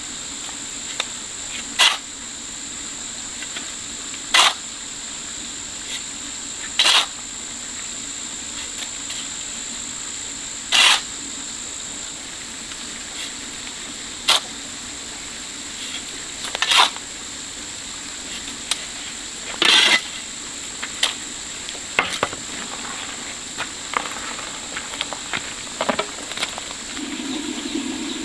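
A series of short, sharp knocks or strikes, about one every two to three seconds and irregularly spaced, over a steady high-pitched whine and a low hum.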